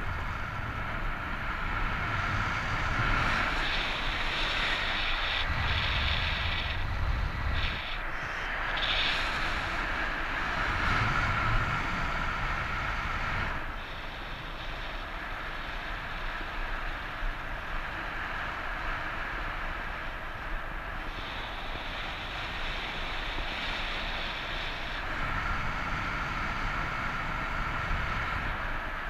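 Wind rushing over the microphone of a paraglider in flight in strong wind: a steady rushing noise with gusty low buffeting that swells and eases in stretches, and turns lower about halfway through.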